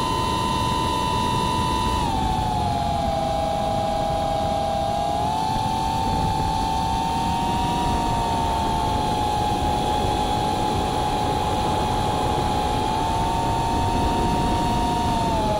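FPV quadcopter's brushless motors whining at several slightly different pitches over steady propeller and wind noise, heard through the onboard action camera's microphone. The pitch drops about two seconds in, climbs again a few seconds later, and falls once more near the end.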